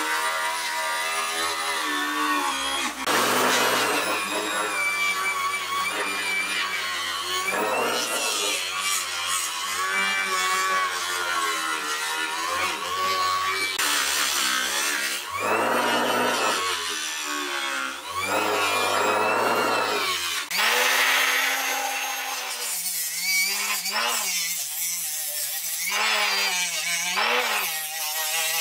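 Electric power tool running against metal during rust removal. The motor's pitch sags and recovers again and again as the tool is pressed into the work, over a continuous harsh grinding hiss.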